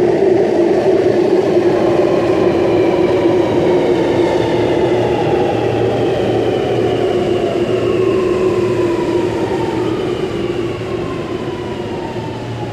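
Sydney Metro Alstom Metropolis single-deck train slowing into an underground platform, the whine of its traction motors falling steadily in pitch over a steady rumble as it brakes to a stop.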